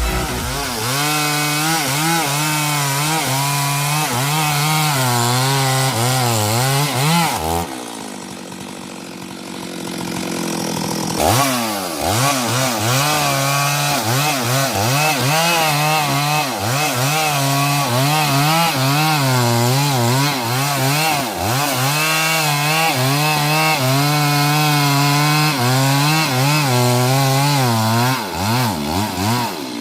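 Stihl MS 382 two-stroke chainsaw running at high revs while cutting into albasia wood, its pitch wavering as the chain loads and unloads in the cut. About seven and a half seconds in it drops back to a lower idle for a few seconds, then revs sharply back up and cuts again.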